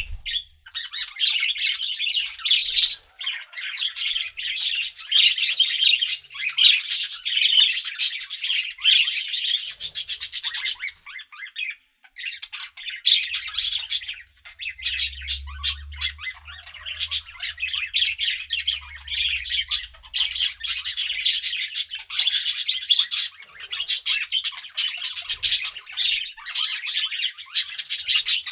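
Pet budgerigars chattering and chirping without pause: many rapid, high warbling notes and squawks. The chatter breaks off for about a second near the middle and then carries on.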